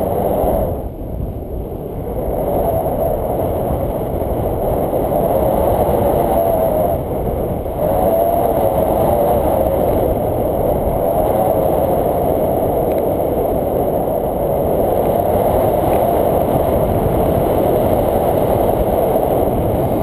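Wind rushing over the camera's microphone during a tandem paraglider flight: a loud, steady rumble that dips briefly about a second in and again just before 8 s.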